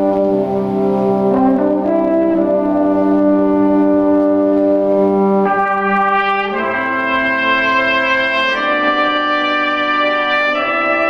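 Brass ensemble of trumpets, French horn and trombones playing slow, sustained chords. Brighter, higher trumpet notes come in about halfway through, and the chord changes a few times after that.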